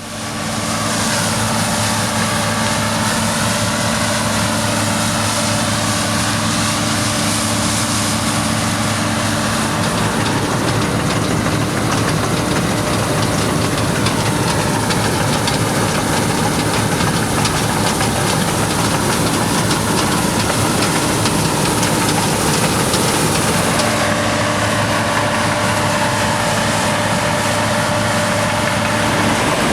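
Claas Lexion combine harvester running, a continuous loud machine drone with steady low hums; the low hum fades about ten seconds in and comes back strongly some fourteen seconds later.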